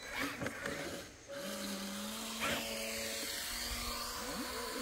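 Small electric motor of a radio-controlled boat running with a steady whine that starts about a second and a half in and steps up slightly in pitch partway through.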